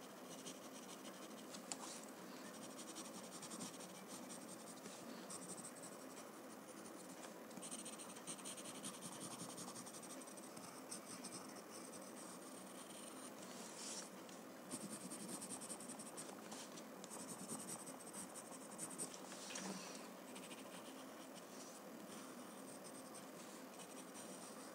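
Graphite pencil shading on a paper card: the lead scratching faintly and unevenly against the paper in repeated strokes.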